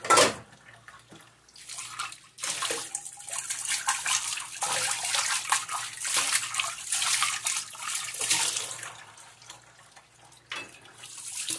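Tap water running through a hose into a stainless-steel sink basin that is filling up because its drain is clogged, with splashing as a hand stirs the standing water. A short knock at the very start; the splashing is strongest in the middle and dies down about two seconds before the end.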